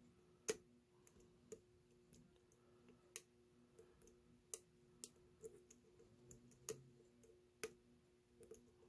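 Faint, irregular clicks and ticks of a lock pick working the pin stack and warding of a solid brass Ace padlock under tension, as the pins are lifted and set.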